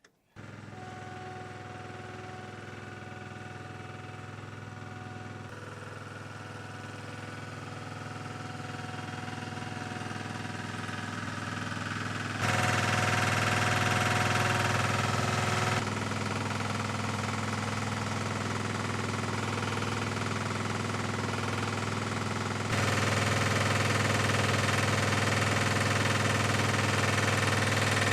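Steady jet engine noise with a low hum. It grows gradually louder over the first dozen seconds, then jumps abruptly up and down in level a few times.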